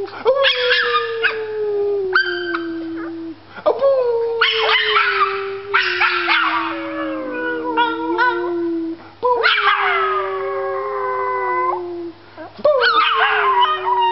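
Small puppy howling: a series of about four long howls, each a few seconds long and sliding down in pitch, with short yips between them. A lower, steadier human howl runs alongside the puppy's howls.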